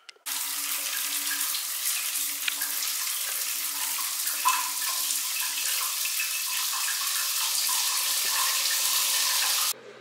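Shower running: a steady hiss of water spraying from the showerhead, starting suddenly just after the cross-handle tap is turned and cutting off suddenly near the end.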